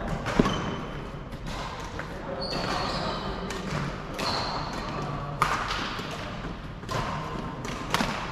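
Badminton play in a large echoing sports hall: sharp racket strikes on the shuttlecock several times, shoes squeaking briefly on the wooden court, and voices from other courts throughout.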